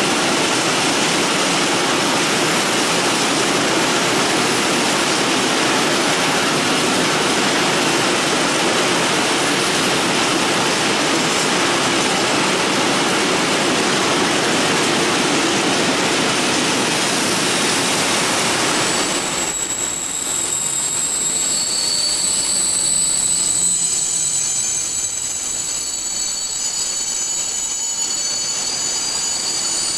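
A long freight train of open coal wagons rolling past, with a steady loud rumble and clatter of wheels on rail. About twenty seconds in the noise drops suddenly, and thin, steady high-pitched wheel squeals come through.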